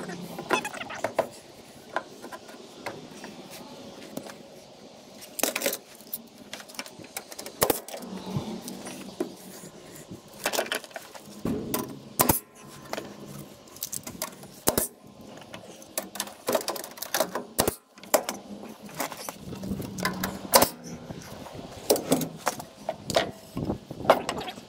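Pneumatic nail gun firing into wooden studs while the studs are knocked and handled into place: a string of sharp, irregular bangs and clacks.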